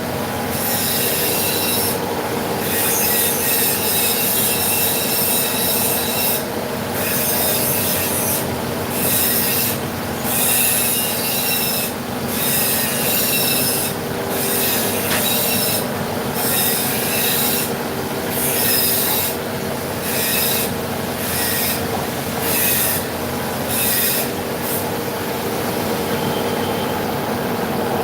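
CNC vertical machining centre milling metal: a steady machine hum under a high-pitched squeal from the cutter that starts and stops every second or two and dies away near the end.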